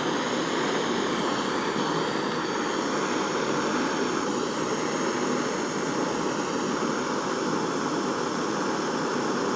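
Gas soldering torch burning with a steady hiss, heating a silver piece so the solder flows along the joint.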